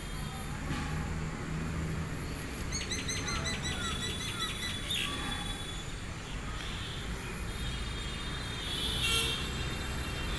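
Steady low rush of floodwater, with a bird calling over it: a quick run of chirps about three seconds in and a short call near the end.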